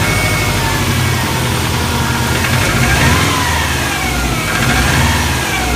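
1997 Subaru Impreza GT's turbocharged flat-four idling with a knock, blipped lightly twice, about two and a half and five seconds in. The knock, heard from cold under light throttle up to 2000 rpm, is taken by a Subaru mechanic for piston slap, though the owner fears a spun bearing.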